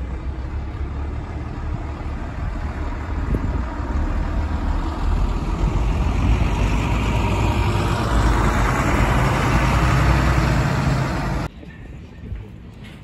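Single-deck diesel bus moving off and driving close past, its engine growing louder to a peak as it goes by. The sound cuts off suddenly near the end, leaving quieter street noise.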